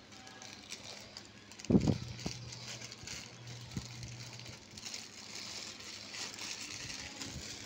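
A clear plastic bag crinkling and fluttering in the airflow of a small 12-volt NSS clip fan, with one loud thump a little under two seconds in, followed by a low steady hum.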